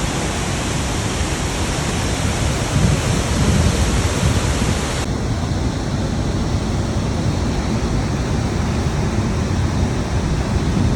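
Niagara Falls' water rushing down in a loud, steady, unbroken roar. About halfway through, the hiss at the top of the sound drops away suddenly and it turns duller.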